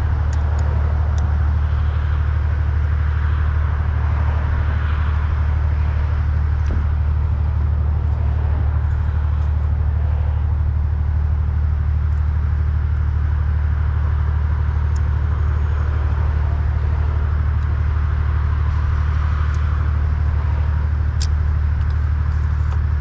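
A steady low droning hum, unchanging in level, with a few faint clicks near the middle and near the end.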